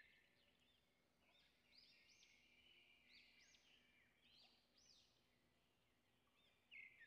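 Near silence, with faint bird chirps repeating throughout: short, high, rising-and-falling calls.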